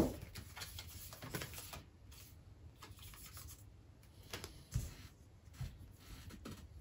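Tarot cards being handled on a table: a sharp tap at the very start, then faint, scattered card rustles and light taps.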